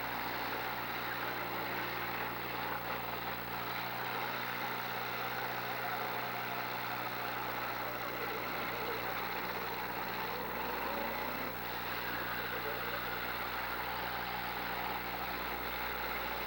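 Engines of demolition derby cars running together in a steady, noisy mix, with one engine revving up briefly about eleven seconds in.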